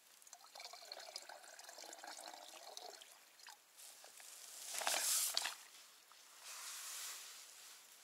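Water poured from a small metal pot into a plastic bag, trickling and splashing softly, with a louder rush of pouring about five seconds in.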